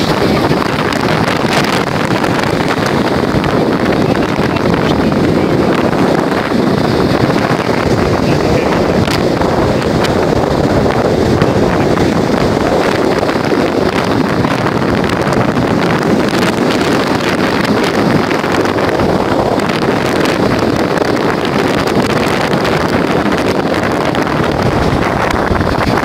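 Steady wind buffeting the microphone over storm surf breaking and washing up a sandy shore of the Baltic Sea.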